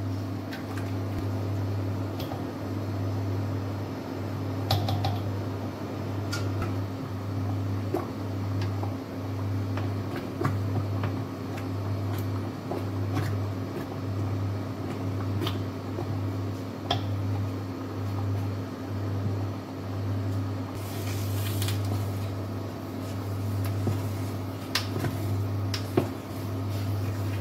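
Low electrical hum from an induction hob, pulsing about once a second. Over it come soft scraping and scattered clicks of a spoon against a stainless steel pot as semolina halva is stirred while the toasted semolina soaks up the syrup.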